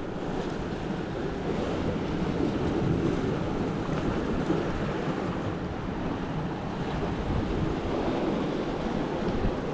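Steady wash of sea surf against the shore rocks, with wind rumbling on the microphone.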